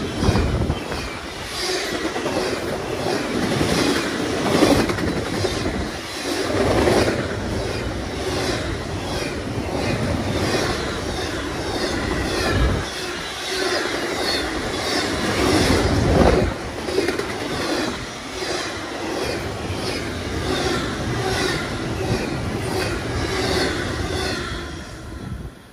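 Double-stack intermodal freight cars rolling past at speed: a steady rumble with an even, rhythmic clatter of wheels over the rail joints. The sound drops away suddenly as the last car clears, near the end.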